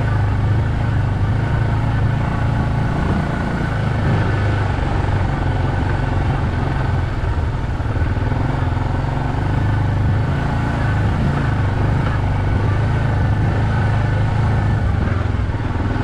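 ATV engine running steadily under way, a low hum that holds an even pitch with little change in revs.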